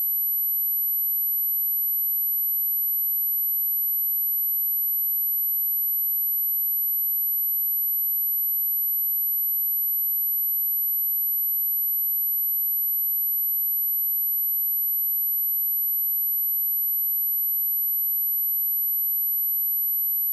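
A steady, unbroken pure sine tone at 11,818 Hz, a single high-pitched test tone of the kind used to check a speaker and shake water or dust out of it.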